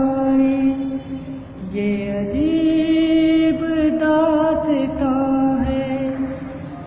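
A man singing unaccompanied, drawing out long, wavering held notes that step up to a higher note about two seconds in. A low thump comes every second or two as his hand strikes the wooden table.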